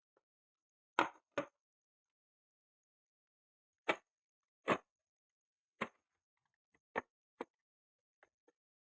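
Short, sharp knocks and clicks of hard parts being handled, about nine of them, some in pairs, with silence between.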